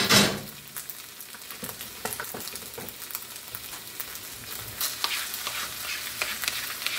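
Fried rice sizzling in a hot pan while a spatula scrapes and stirs it, with small clicks and scrapes throughout. One loud scrape comes right at the start.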